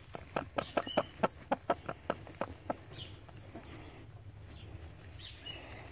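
Broody hen clucking in a quick run of short low clucks, about five a second for the first three seconds, then falling quiet. It is the grumbling protest of a broody hen disturbed on her nest as a hand reaches under her for eggs.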